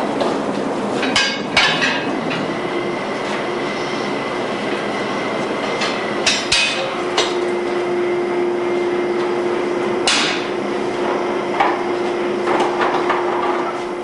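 A few sharp metal clanks and scrapes from a steel crucible shank and tools, over a steady loud rushing noise, as foundrymen handle a crucible of molten bronze. The clanks fall about a second in, around six seconds and around ten seconds, and a steady hum joins about halfway through.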